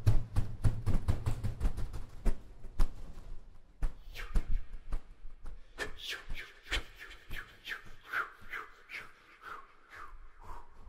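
Ceremonial instrumental music on prehispanic-style instruments: quick percussive strikes with a low thump. About four seconds in these give way to repeated short, falling bird-like whistle calls over sparser beats.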